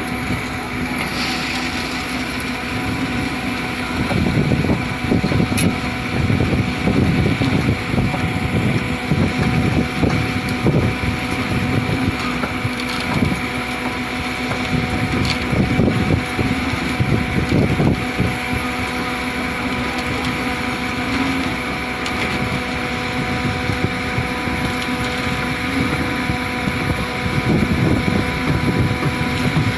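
Concrete mixer pump running steadily, a constant machine hum with several fixed tones. Wind buffets the microphone in irregular gusts.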